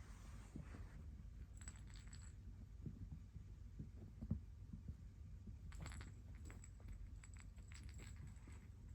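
Kitten purring, a low steady rumble, with bursts of light clicking and jingling about two seconds in and again from about six seconds to near the end.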